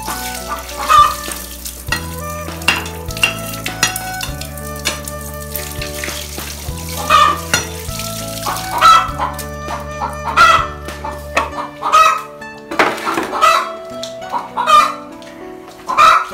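Chickens clucking and a rooster crowing again and again over background music with slow, held low notes, which drop out about two-thirds of the way through; scattered sharp knocks and clicks run throughout.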